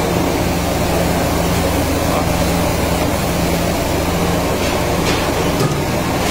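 Large steel dhokla steam machine running: a loud, steady rushing noise with a constant low hum underneath.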